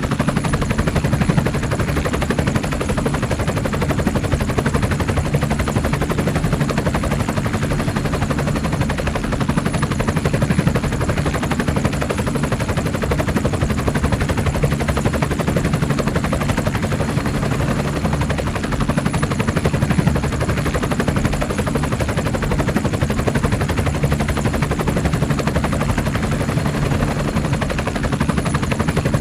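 Helicopter heard from on board: a steady, rapid rotor chop over a constant engine and transmission drone, unchanging throughout.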